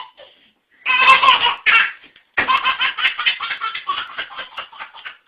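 A baby laughing: two short bursts about a second in, then a long run of quick repeated laughs from about halfway in that fades toward the end.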